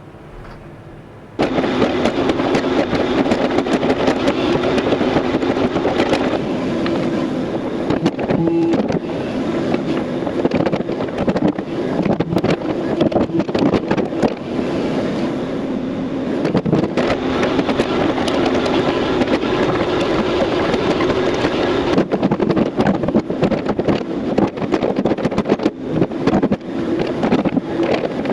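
Excavator working: the diesel engine runs under load with the hydraulics, amid constant clanking and rattling of the bucket and machine on dirt and rock. It starts abruptly about a second in.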